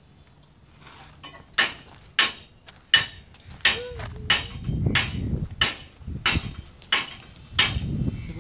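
A steady series of about ten sharp knocks, about one every two-thirds of a second.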